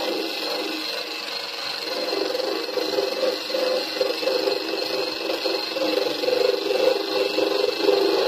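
Eastwood electric paint-stripping grinder running continuously, its abrasive wheel held against rusted sheet metal and grinding rust and paint off. It has a steady motor whine whose loudness swells and dips as the wheel bears on the metal.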